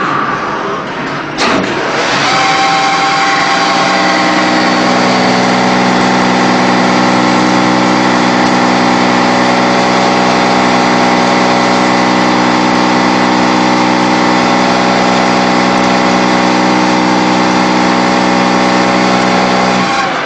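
CNC polygon lathe running steadily: a loud, even motor hum of many tones sets in after a sharp click about a second and a half in, and stops near the end.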